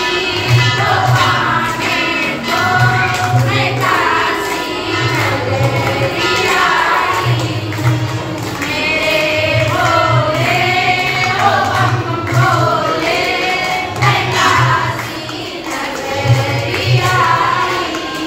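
A group of women singing a Hindu devotional song (bhajan) together, clapping in time. Under the voices runs a low pulse that repeats about once a second.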